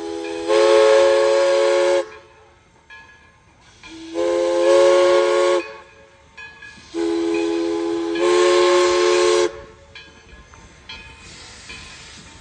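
East Broad Top No. 16, a Baldwin 2-8-2 Mikado steam locomotive, blowing its chime whistle in three blasts, each a chord of several notes that steps up in loudness partway through. The first and third blasts are longer and the middle one short; between and after them the train rumbles faintly as it moves off.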